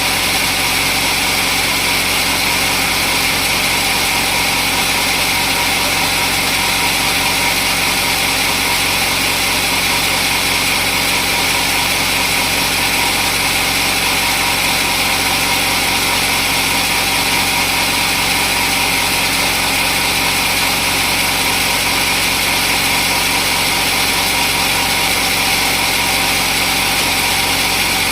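Sawmill machinery running steadily with a constant hum and hiss that does not change.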